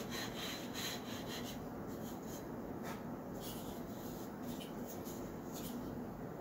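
Light, uneven hand-tool rubbing strokes against the nose of a balsa rubber-powered model airplane fuselage, shaping its 1/16 plywood doubler and blending it flush to the balsa.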